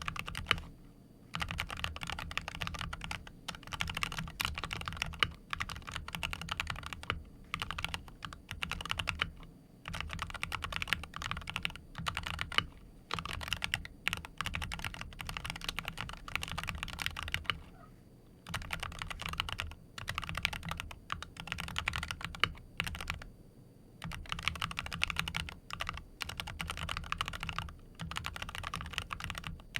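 Typing on a tuned Wooting 60HE keyboard with magnetic Hall-effect switches in a full-aluminium Tofu60 Redux case: fast runs of keystrokes in bursts of a few seconds, with brief pauses between them.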